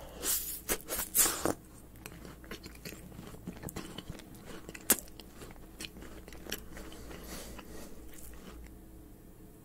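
A bite into a macaron, its shell crunching loudly several times in the first second and a half, then steady close-miked chewing with many small clicks.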